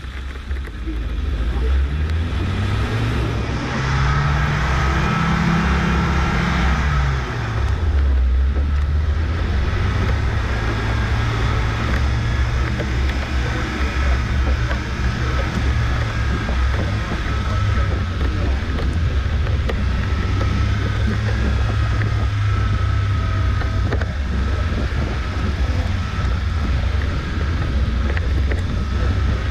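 Engine of a 1987 Suzuki SJ413, a 1.3-litre four-cylinder, driving off-road. It revs up and falls back a few seconds in, then runs on as a steady, rough drone.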